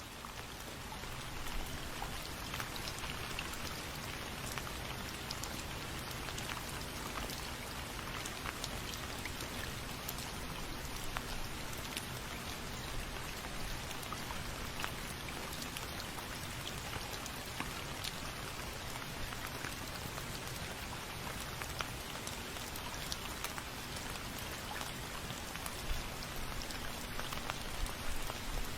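Steady rain falling, with many individual drops ticking on a surface through an even hiss. It swells in over the first second or two, then holds steady.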